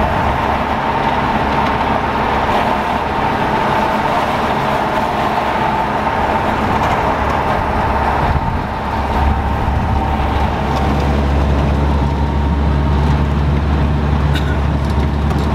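Engine drone and road rumble heard from inside the cab of a vehicle driving slowly. There is a brief dip in loudness about eight seconds in, after which the low rumble grows stronger.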